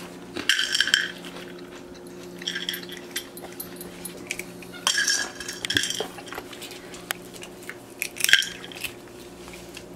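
Corn puff cereal rustling and clinking in a bowl as a hand picks through it, in short bursts about four times, the sharpest just after 8 seconds, over a steady low hum.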